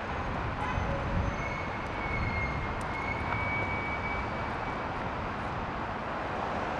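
Steady rumble of city street noise from traffic. A faint thin high tone runs through it from about a second in for roughly four seconds.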